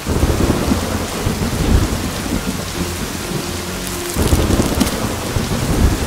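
Steady rain falling with low thunder rumbling under it; the rumble breaks off briefly about four seconds in, then returns.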